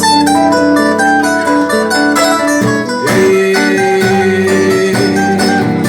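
Instrumental music with no singing: a plucked string instrument plays a run of quick melodic notes over a steady backing of held lower notes.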